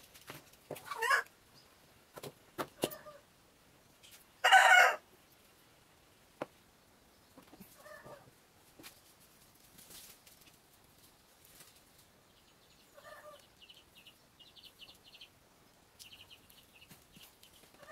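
Chickens clucking now and then, with one loud, short call about four and a half seconds in.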